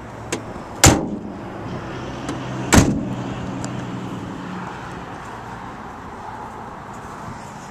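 The rear doors of a 2018 Chevrolet Express van slammed shut one after the other, two loud bangs about two seconds apart.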